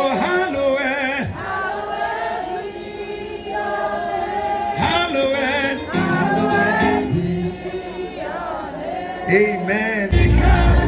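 A choir singing, several voices holding wavering notes. About ten seconds in, a heavy bass beat comes in abruptly.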